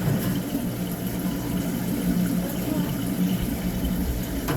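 Aquarium pumps and filters running in the fish tanks, a steady low hum with water rushing and trickling.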